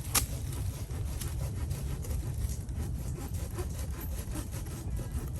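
Wind buffeting the microphone as a steady low rumble, with small crackling clicks throughout and a sharper click just after the start.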